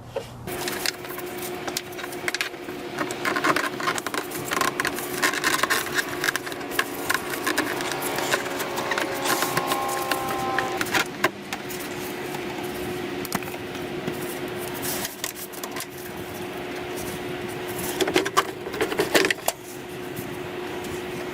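Hard plastic airbox and intake parts of a BMW E90 clicking, knocking and scraping as they are pried and worked free by hand, with clusters of sharper clicks about a few seconds in and near the end, over a faint steady hum.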